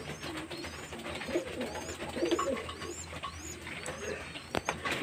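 Domestic pigeons cooing in low warbling calls, with many short high chirps over them. There are a couple of sharp clicks about four and a half seconds in.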